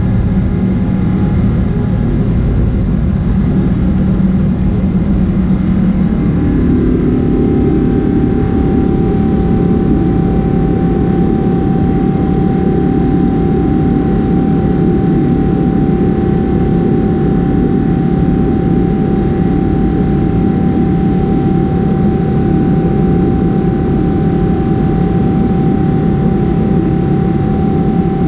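Steady loud roar of a Boeing 777-300ER's left GE90-115B turbofan during the climb after takeoff, heard inside the cabin. About six seconds in, the character of the roar shifts and a steady mid-pitched whine sets in and holds.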